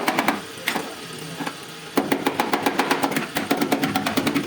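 Rapid hammer strikes on steel, about eight taps a second, in two runs with a short pause between them.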